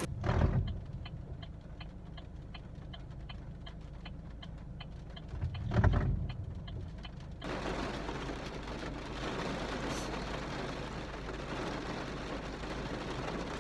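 Rain falling on a car, heard from inside the cabin: steady ticking at about three ticks a second for the first seven seconds, with a low rumble about six seconds in. Then the even hiss of rain on the car's roof and windows takes over.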